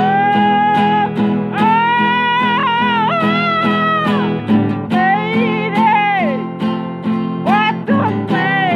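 Acoustic guitar strummed in a steady rhythm under a voice singing long held, wavering notes without clear words.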